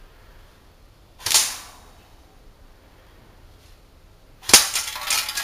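Cyma CM.048SU battery-powered airsoft AKMSU firing: one sharp shot about a second in, then another sharp shot near the end followed by a longer, louder stretch of noise.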